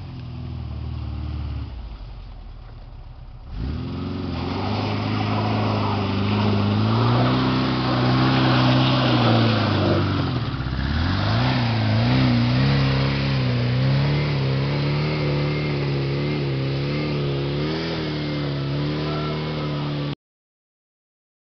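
VW-engined Fugitive trials buggy driving up a steep muddy track under load. The engine sags low at first, then revs up sharply about three and a half seconds in and stays high, its pitch wavering up and down, before the sound cuts off abruptly near the end.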